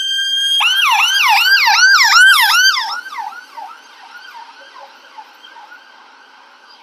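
Ambulance siren passing close by. A steady held wail switches about half a second in to a fast yelp of three or four sweeps a second. It is loudest around two seconds in, then drops away after about three seconds to a faint yelp as the ambulance pulls away.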